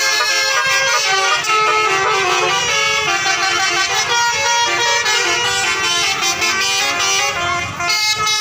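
Basuri telolet bus horn playing a melody, its several horn tones stepping quickly from note to note.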